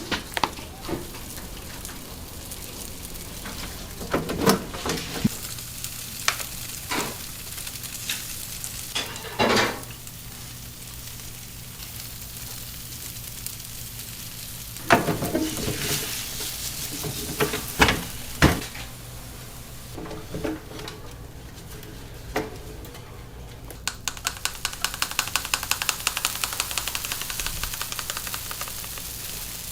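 Bungeoppang batter and red-bean filling sizzling in hot iron fish-shaped molds. Sharp metal clanks and knocks come now and then as the molds are handled, and near the end there is a fast run of clicking.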